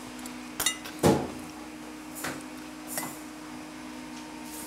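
A metal fork clinks against a ceramic plate about four times, the loudest about a second in, as fresh fettuccine is twirled into a nest. A steady low hum runs underneath.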